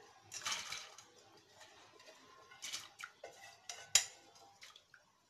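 Washed toor dal tipped from a stainless steel bowl into water in an aluminium pressure cooker: a short rush and splash, then a few light metallic clinks and taps as the bowl knocks against the cooker, the sharpest about four seconds in.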